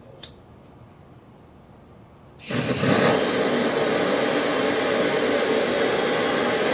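A single sharp click, then about two and a half seconds in a propane torch lights all at once and burns with a steady, loud hiss.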